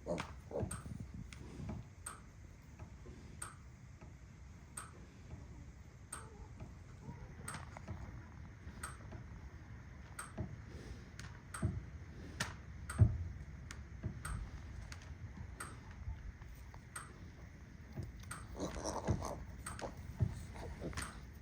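Electric fence charger snapping with a sharp, regular click about once a second, each click a pulse of the fence energizer.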